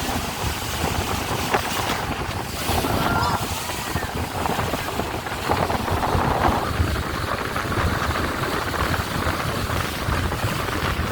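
Speedboat under way across open water: engine and hull running over the waves, with wind buffeting the microphone.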